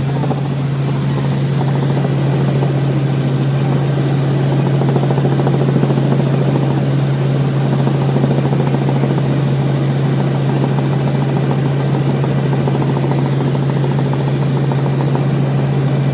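Cabin noise of a Robinson R44 Raven II helicopter in flight: the Lycoming six-cylinder engine and rotors make a loud, steady drone over a constant low hum.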